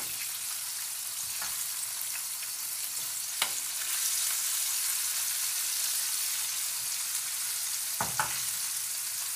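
Breaded chicken strips frying in hot oil in a skillet, a steady sizzling hiss. A few light clicks of the utensil against the pan come about three and a half seconds in and again near the end as the strips are turned.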